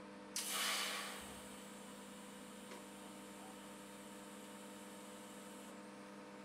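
TIG welding torch at a mild-steel bracket: a sudden hiss about a third of a second in that fades over about a second, then a thinner high hiss that stops near the end. A faint steady electrical hum runs underneath.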